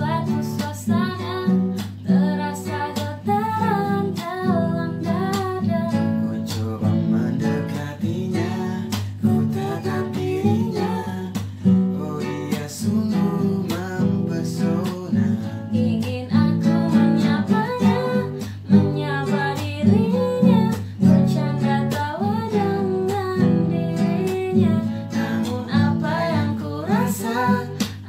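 Acoustic guitar strummed as accompaniment to a woman and a man singing a song.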